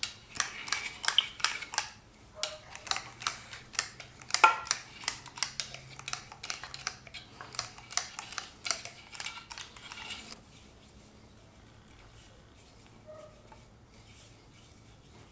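Hand tools handled at the block, giving a rapid, irregular run of sharp clicks and light metallic clatter that stops about ten seconds in.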